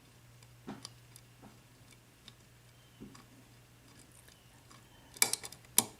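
Tension wrench and lock pick working the pin stack of a small 4-pin brass IFAM padlock: a few faint scattered ticks, then louder sharp metallic clicks about five seconds in and near the end as the plug turns and the lock opens.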